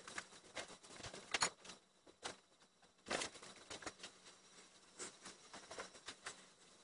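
Faint, irregular light clicks and taps, scattered unevenly, with two louder clicks about a second and a half in and about three seconds in, over a faint hiss.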